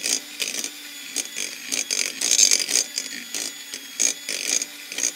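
Electric hand mixer running steadily while creaming butter and sugar, its beaters scraping and clicking irregularly against the glass bowl.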